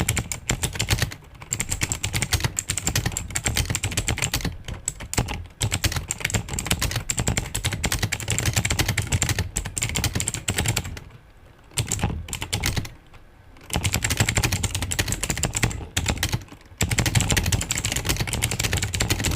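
Rapid typing on a cheap stock mechanical keyboard, a fast run of key clicks with two brief pauses in the middle.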